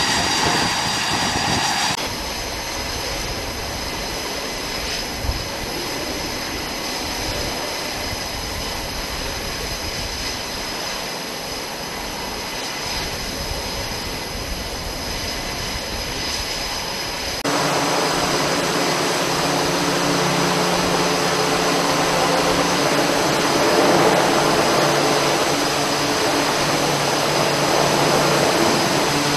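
Jet aircraft engines running on an aircraft carrier's flight deck, a steady noise. About two-thirds of the way in it changes abruptly to a Navy H-60 Seahawk helicopter hovering low over the deck, its turbine and rotor giving a louder, steady hum with several low tones.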